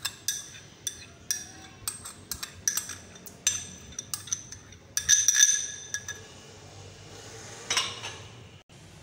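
Metal spoon scraping and clinking against a glass bowl as a thick yogurt mixture is scraped out. Quick ringing clinks come over the first six seconds, loudest and thickest around five seconds in, then one more clink near the end.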